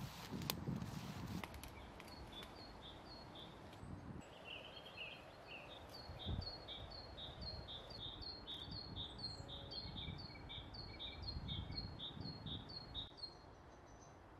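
A bird singing a long run of repeated high two-note phrases, about two a second, over quiet woodland ambience. A few soft low rustles come near the start and later on.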